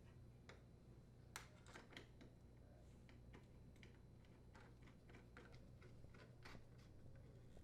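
Faint, irregular light clicks of a screwdriver or nut driver threading screws into a KitchenAid dishwasher's door panels, over a low steady hum.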